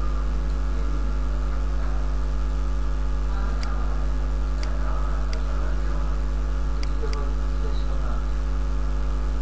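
Steady electrical mains hum with a stack of overtones, carried on the recording microphone, with five sharp computer mouse clicks between about three and a half and seven seconds in.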